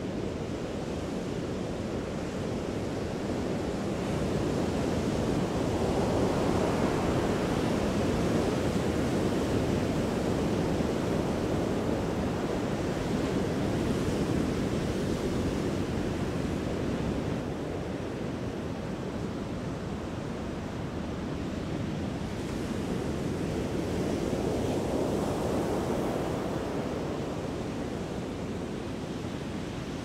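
Ocean surf: large waves breaking and washing in a steady rush, swelling louder twice.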